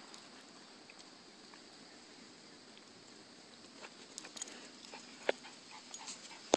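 Faint pattering and clicking of dogs' paws and claws on paving stones as two dogs play. The clicks come more often in the second half, with a sharper tap about five seconds in and a louder one near the end.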